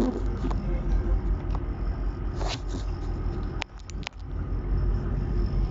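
A boat's engine running with a steady low rumble. A few sharp knocks and clicks come a little before and after the middle.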